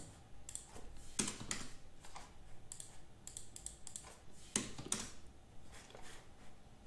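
Computer keyboard typing: irregular keystrokes, with a few louder strokes about a second in and again around the middle.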